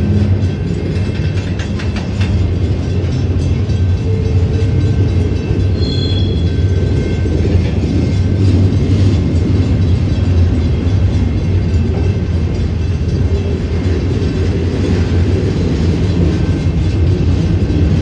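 Union Pacific autorack freight cars rolling past on the rails: a steady low rumble of wheels on track, with a few clicks of wheels over rail joints about two seconds in.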